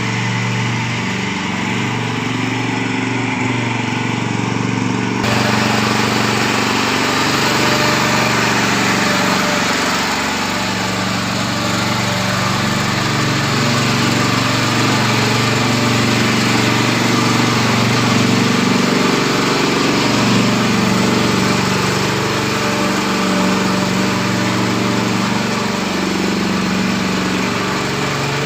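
Mini rotavator's small engine running steadily, with a harsher, noisier sound coming in about five seconds in.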